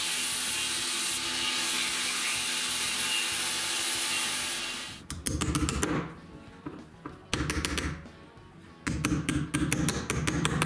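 A belt sander runs steadily while a small piece of wood is sanded on it; the sound stops abruptly about five seconds in. After that come several groups of quick light hammer taps driving a steel pin into a wooden block, over background music.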